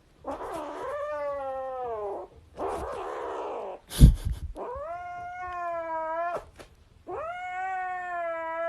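A cat yowling in three long, drawn-out calls, the first sliding down in pitch. A sudden thump about four seconds in is the loudest sound.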